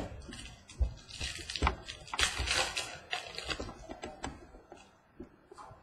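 Trading cards being handled: a scattered run of small clicks and taps with brief rustles as cards are flipped and slid against each other, quieter near the end.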